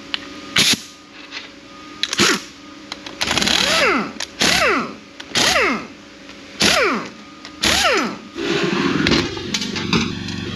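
A few sharp metal knocks, then five short whirring bursts about a second apart, each rising and then falling in pitch like a tool spinning up and coasting down. Near the end a steady buzzing drone starts.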